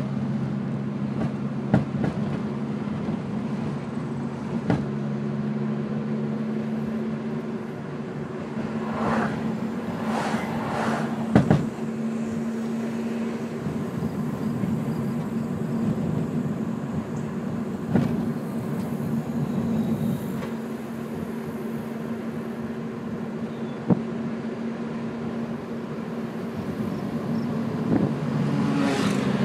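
2002 Ford Focus running with a steady low drone, broken by a handful of sharp clunks at irregular intervals from the driver's side front suspension: the sign of a bottomed-out coilover.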